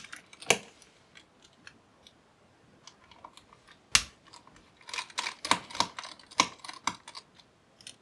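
Scattered sharp clicks and taps of a precision screwdriver working the small screws of a laptop's CPU heatsink: one click about half a second in, another at four seconds, then a quicker run of clicks for a couple of seconds near the end.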